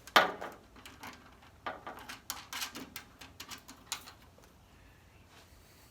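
Small metal hardware clinking and clicking as nuts are fitted onto the hood latch bolts: one sharp click at the start, then a quick irregular run of lighter clicks before it settles.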